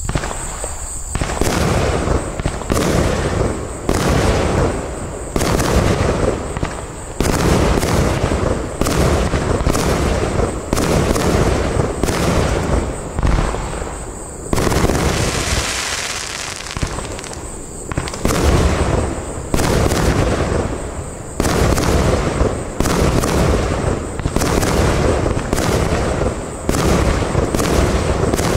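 Iskra Line 'Bajka' SFC42 compound firework cake firing heard from a long distance: a steady run of sharp launch and burst reports, about one to two a second. There is a longer hiss midway.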